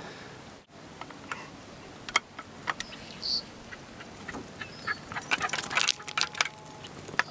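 Metallic clicks and clinks from a shotgun being handled and loaded, scattered at first, then a quick run of clinks a little past halfway.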